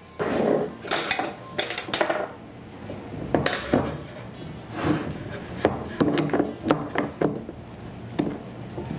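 Steel parts of a split-frame clamshell pipe lathe clinking and knocking irregularly as the two frame halves are fitted and bolted together, with short metallic rings and scrapes.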